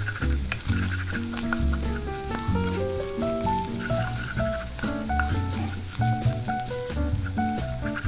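Shredded tuna sizzling in a non-stick frying pan while a wooden spatula stirs and scrapes it, with a steady frying hiss and scattered scraping ticks. Background music with a melody and bass line plays throughout.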